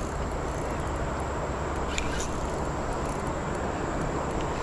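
Steady rushing noise of the river, with a brief high squeak about two seconds in.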